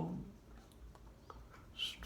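Faint, light scraping with a few small ticks from a Swiss Army knife blade being stroked on a medium diamond sharpening plate.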